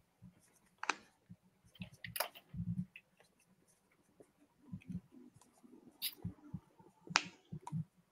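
Faint, irregular clicks and light taps from a marker and a handheld dry-erase board as an answer is written. The sharpest click comes about seven seconds in.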